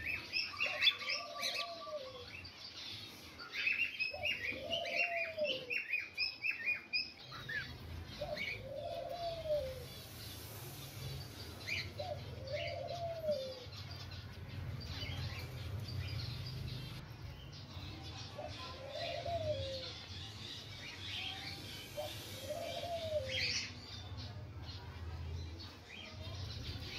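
Zebra finches chirping in a nest box: a fast run of short high chirps in the first seven seconds, then scattered chirps. A lower arched call repeats every few seconds, and a low steady hum comes in about seven seconds in.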